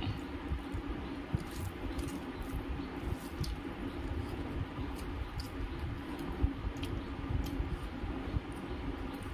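Cooked rice being mashed and mixed by hand on a steel plate: soft wet squishing with scattered small clicks of fingers against the metal, over a steady low hum.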